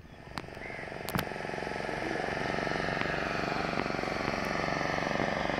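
A small engine running steadily, getting louder over the first couple of seconds and then holding, with a few sharp knocks about a second in.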